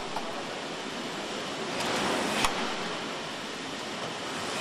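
Car assembly-line hall noise: a steady hiss of machinery and air, swelling a little about two seconds in, with a few sharp tool clicks, the loudest about halfway through.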